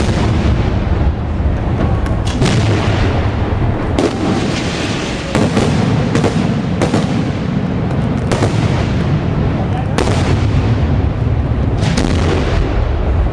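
Aerial fireworks display in full barrage: a continuous rumble of shell bursts, with sharp loud reports every second or two.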